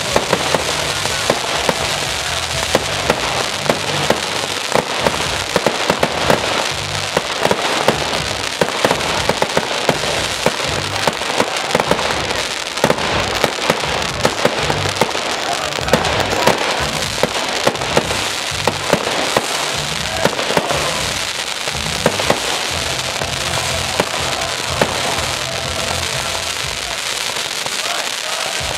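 Fireworks going off without a break: a dense crackle with frequent sharp bangs, several a second.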